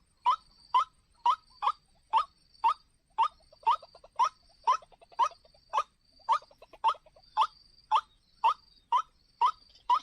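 White-breasted waterhen (ruak-ruak) call: a steady, evenly spaced run of short, sharp rising notes, about two a second.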